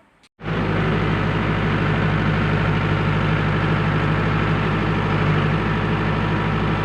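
A backhoe's diesel engine running steadily at a constant low speed. It starts abruptly about half a second in.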